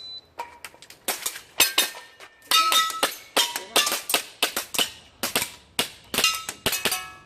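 Shot timer's start beep, then a rapid string of airsoft pistol shots, roughly three a second, some followed by the short ringing of steel targets being hit.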